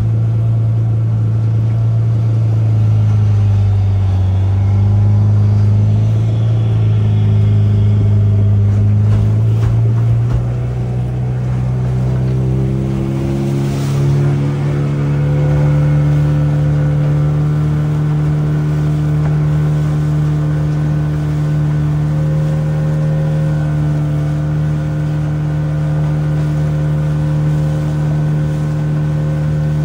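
Motorboat engine running steadily. Its pitch rises about ten to fourteen seconds in as the throttle is opened, then holds at the higher speed.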